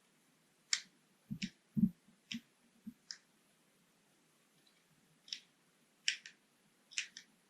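Small wooden puzzle box being handled: scattered sharp wooden clicks and taps as its sliding pieces are moved, with a couple of duller knocks about a second and a half in and a pause in the middle.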